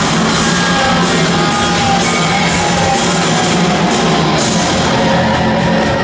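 Loud rock music with guitar, steady throughout.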